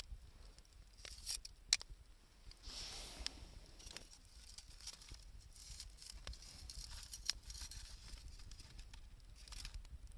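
Wood fire burning, with scattered crackles and pops from burning 2×4 lumber and scrap wood, and a brief rushing hiss about three seconds in.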